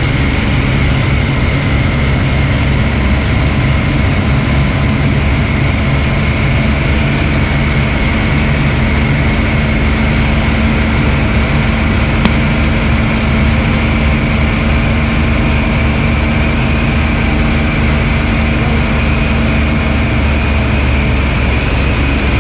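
Hawker Hurricane's Rolls-Royce Merlin V12 engine running steadily at full power through the takeoff roll and climb-out, heard from inside the rear cockpit, with a steady high whine through it.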